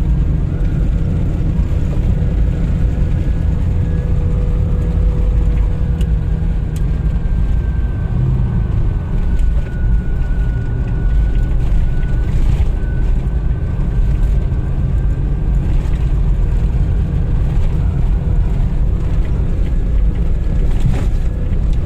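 Off-road 4x4 driving: a steady, loud low rumble of engine and tyres.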